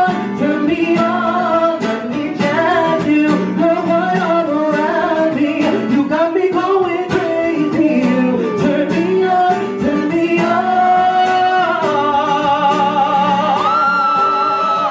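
A man singing into a microphone while playing an acoustic-electric guitar. The vocal melody bends and slides, and it holds long, wavering notes in the last few seconds.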